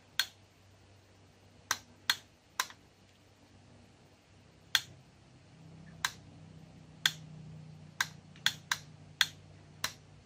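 About a dozen sharp, irregular clicks as the potentiometer and input wiring of a homemade TIP41 transistor amplifier are handled, with a faint low hum that swells in the second half.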